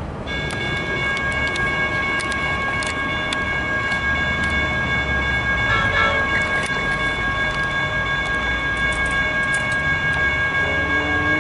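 Comeng electric suburban train approaching over the tracks: a low rumble with a steady high-pitched whine of several tones that sets in just after the start and holds. A few faint clicks sound over the rumble, and lower wavering tones join near the end.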